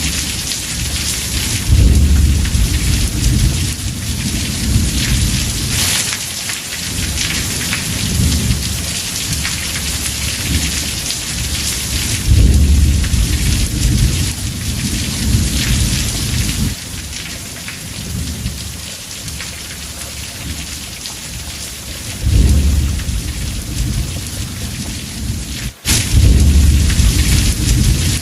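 Heavy rain drumming steadily on a house roof, with rolling thunder rumbling low about five times, each rumble swelling and fading over a few seconds. The whole sound cuts out for an instant near the end.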